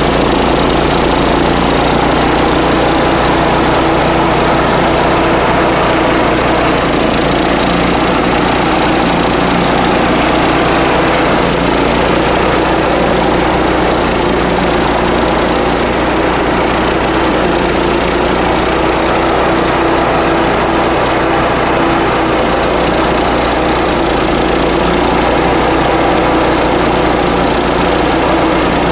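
Small engine of a rice thresher running steadily at a constant speed.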